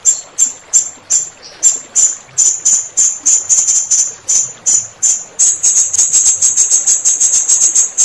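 Blue-crowned hanging parrot (serindit) calling: a string of short, very high, sharp notes, about three a second, that speeds up into a fast chattering run about halfway through. Flowing water runs faintly underneath.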